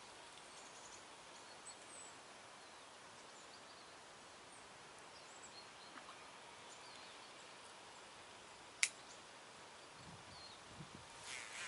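Quiet outdoor background hiss with scattered faint bird chirps, and one sharp click about nine seconds in.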